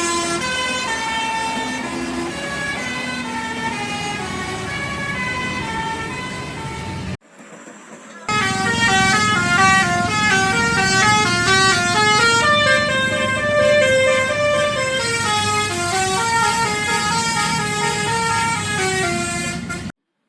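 A bus's multi-tone basuri telolet horn playing a tune of stepped notes over a low rumble. It breaks off briefly about seven seconds in, then a second, faster tune of quick note runs plays until it cuts off near the end.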